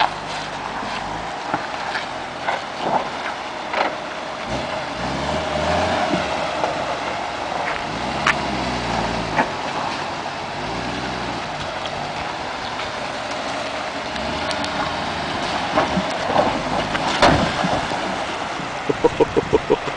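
Toyota Land Cruiser's engine running as it crawls through a creek, its pitch rising and falling with the throttle. Scattered sharp knocks, and a quick rattling run of taps near the end.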